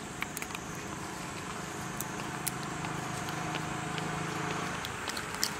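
A low engine hum, swelling for a couple of seconds in the middle, over steady background noise with scattered light clicks.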